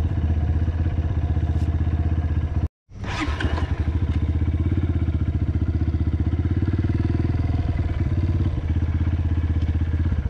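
Dirt bike engine idling at low speed, a steady, evenly pulsing engine note. The sound drops out completely for a split second just under three seconds in, then carries on unchanged.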